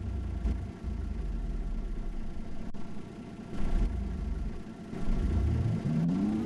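City bus heard from inside, its low engine rumble steady at first; about five and a half seconds in a whine starts and climbs in pitch as the bus pulls away and accelerates.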